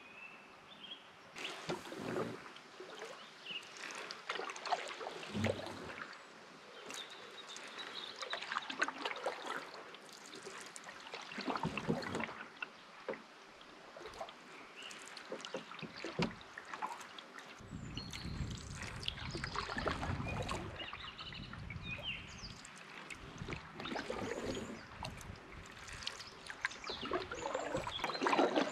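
Canoe paddle strokes on calm water: the blade swishing through and dripping, in a slow rhythm of about one stroke every four seconds. A low rumble runs under the strokes through the latter part.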